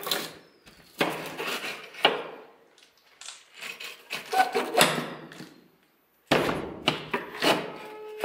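A string of sharp knocks and scrapes, each starting suddenly and dying away, about one a second with short gaps between.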